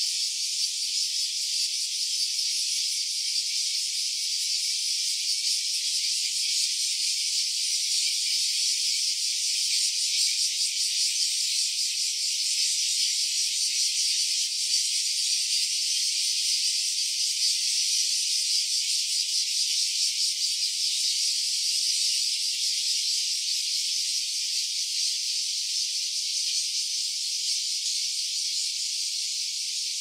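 Cicadas singing in chorus: a dense, steady high-pitched buzz that carries on without a break.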